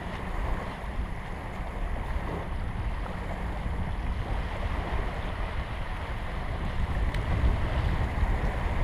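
Wind buffeting the microphone in gusts, over small waves lapping and breaking on a gravel shore.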